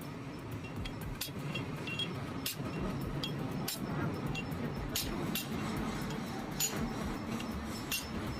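Irregular light metallic clinks of steel tools and parts being handled during a truck differential repair, about a dozen short ringing taps spread unevenly, over a steady low background rumble.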